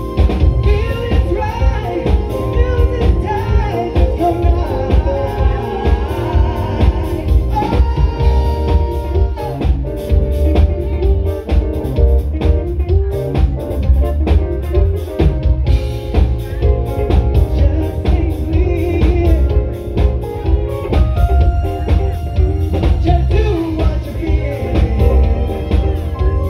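Live band music with a woman singing lead into a microphone over electric guitar, keyboard and a drum kit, with a strong steady bass and drum beat.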